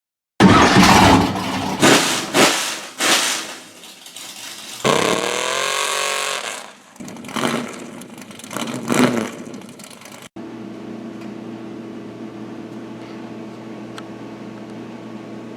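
An engine revving in several loud bursts, with one longer rev that dips and climbs in pitch. After about ten seconds it cuts off suddenly to a steady low hum.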